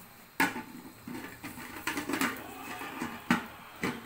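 Aluminium pressure cooker lid being twisted and forced into its locked position by its handles: a sharp metal clack about half a second in, then more knocks and scraping clatter, with two more clacks near the end. The lid is stiff and hard to close.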